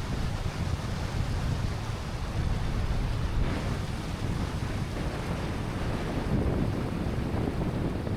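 Wind buffeting the microphone: a rough, rumbling noise that flickers in the low end, with a fainter hiss above it.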